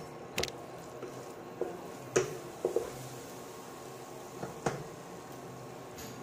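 Wooden spatula stirring and scraping masala in a non-stick kadai, with a few short knocks of the spatula against the pan over a steady hiss of spices frying in oil.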